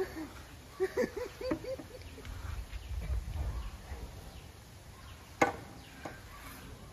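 A few faint short voice sounds in the first two seconds, then a single sharp knock about five and a half seconds in, over a low rumble.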